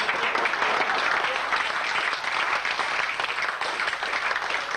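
Audience applauding: many people clapping together, steady throughout.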